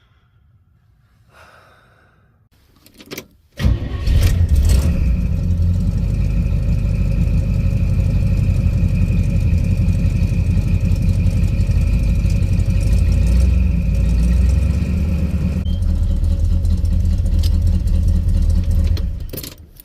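1967 Chevelle's engine starting about three and a half seconds in, after a few small clicks. It runs steadily for about fifteen seconds to circulate fresh oil and fill the new filter, then shuts off near the end.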